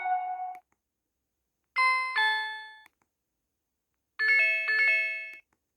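MaxCom MM730 mobile phone playing short message alert tones through its small speaker. An earlier tone fades at the start. About two seconds in comes a two-note falling chime, and about four seconds in a chime of several quick notes, each dying away, with silence between.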